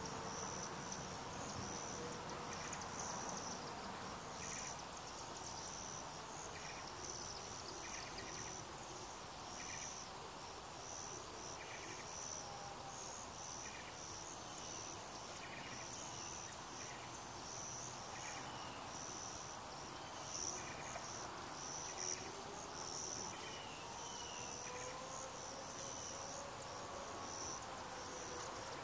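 Insects chirping outdoors: a steady, high-pitched pulsing chorus, with a lower, shorter chirp repeating every couple of seconds, over a faint, even background hum.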